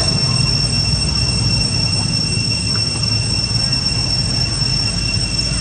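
Steady, high-pitched drone of an insect chorus, several shrill tones held without a break, over a low steady rumble.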